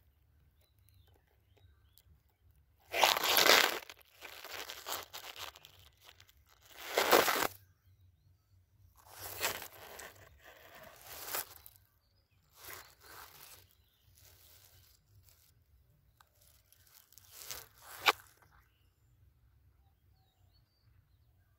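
Rustling, crunching noise that comes in about six separate bursts a few seconds apart, loudest about three and seven seconds in, with a short sharp crack about eighteen seconds in.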